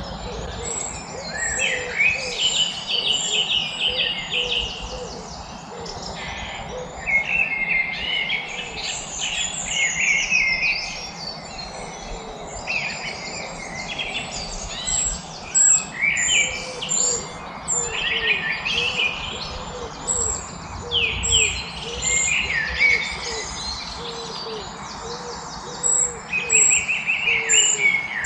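Several songbirds singing and chirping at once, high whistles, trills and rapid note runs overlapping. Beneath them a low call note repeats steadily, about once or twice a second, in the first few seconds and again through most of the second half.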